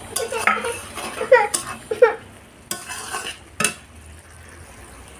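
A metal ladle stirring and scraping a thick, reduced prawn-and-okra curry in a metal karahi, with the curry sizzling underneath. Pitched scrapes and several sharp knocks of the ladle on the pan come in the first three and a half seconds, then it goes quieter near the end.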